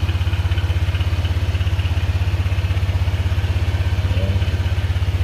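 Honda PCX 160 scooter's single-cylinder engine idling steadily, with an even, rapid pulse.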